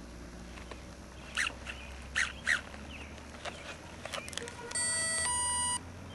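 A few short bird chirps, then near the end a loud electronic beep about a second long that steps from one steady tone to another, from the RC plane's radio gear being powered up.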